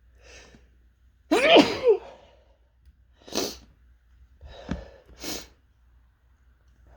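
A run of strong sneezes: a loud one with a high, gliding voiced cry in it about a second in, then three shorter, sharper sneezes.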